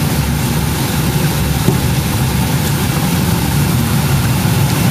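Bubble vegetable washing machine running steadily: a constant low motor hum from its air pump and water pump under an even rush of bubbling, agitated water.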